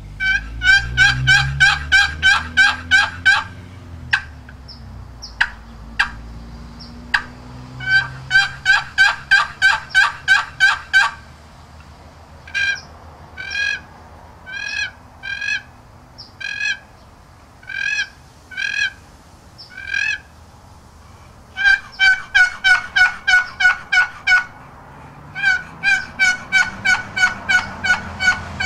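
Wooden box turkey call of California pepperwood with a walnut lid and bottom, its lid stroked across the box in runs of quick, sharp yelping notes, about four a second. Between runs come a few single sharp clicks, and in the middle a slower series of paired notes.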